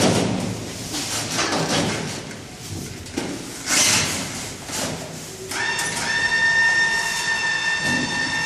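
Knocks and scrapes from heavy moving work, then a steady high-pitched mechanical whine that starts suddenly about five and a half seconds in and holds.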